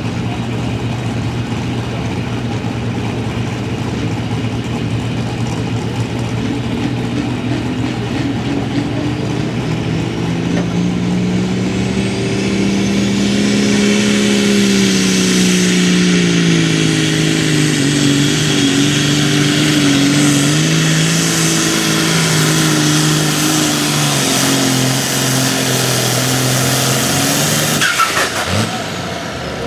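Hot farm pulling tractor's turbocharged diesel engine under full load pulling a sled: the engine note climbs, a high turbo whistle rises over it, then the revs sag slowly as the load builds. Near the end a sharp crack, and the engine drops off.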